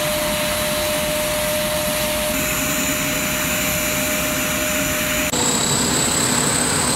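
Turbine noise from a C-130 Hercules: a loud, steady roar with a high, even whine. About five seconds in the whine shifts to a higher pitch.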